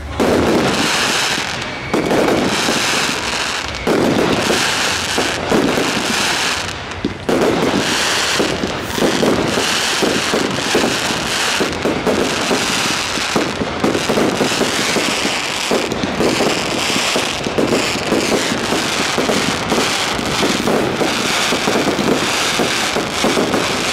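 Professional fireworks display: aerial shells bursting overhead with bangs and crackle. Single heavy bangs about every two seconds at first, then a dense, near-continuous barrage of overlapping bursts.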